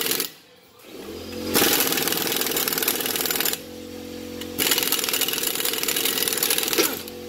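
Impact wrench hammering in bursts: a brief one, then two of about two seconds with short pauses between them. It is driving M8 bolts into the brake drum's threaded jacking holes to force the rusted, stuck drum off the hub.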